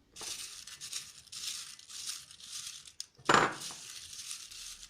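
Folded paper slips rustling as a hand stirs them in a container, with a louder burst of rustling about three seconds in.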